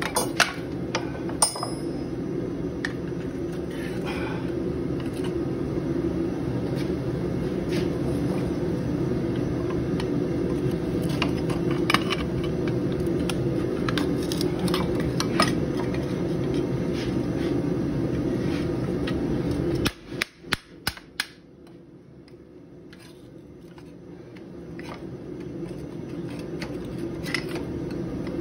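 Scattered metal knocks and clinks as a hot canister-Damascus billet is worked with tongs and hammer, over a steady low rushing noise. A few sharp knocks come about twenty seconds in, the rushing then cuts out suddenly, and it slowly builds back up near the end.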